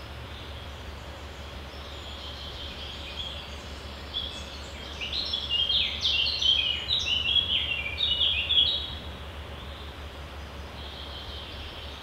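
A songbird singing: a rapid run of short, falling notes that starts about four seconds in and lasts about four seconds, over a steady low outdoor hum.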